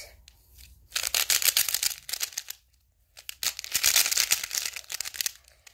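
MoFangJiaoShi Thunderclap speed cube being turned fast, a rapid clatter of plastic clicks in two runs with a short pause in between. The clatter is pretty loud.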